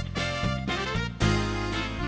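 Upbeat instrumental background music with a bouncy rhythm; a louder, fuller chord comes in just past a second in.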